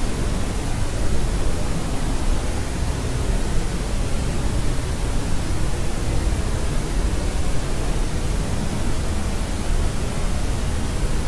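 Steady white noise, a smooth, even rushing hiss weighted toward the low end, like pink noise, unchanging throughout.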